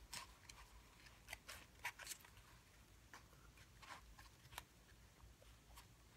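Faint, scattered clicks and soft snaps of a deck of Bicycle playing cards being cut and squared in the hands.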